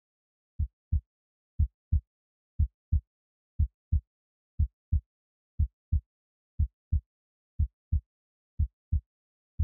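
Heartbeat sound effect: a steady lub-dub of low double thumps, about one pair a second, with silence between the beats.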